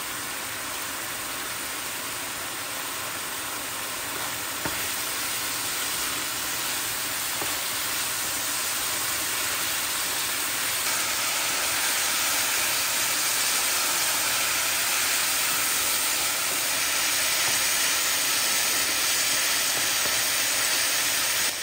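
Diced chicken breast sizzling in hot oil in a frying pan, stirred with a wooden spatula. The steady sizzle grows gradually louder.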